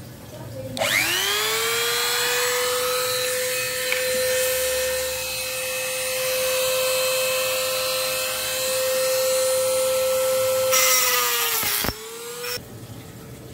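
Handheld electric rotary tool (mini grinder) switched on and spinning up with a rising whine, then running at a steady high-pitched whine. It is powered from a DIY LiFePO4 power station's inverter as a load test. Near the end it is switched off and winds down with a falling whine, followed by a short blip.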